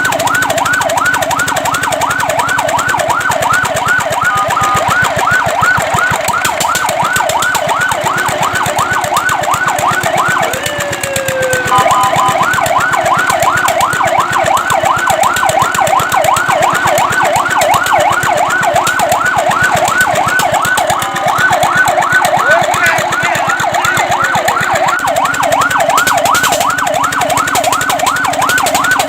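Fire truck's electronic siren in a fast yelp, the tone rising and falling several times a second. It is broken a few times by brief steady tones and once by a short gliding sweep before the yelp resumes.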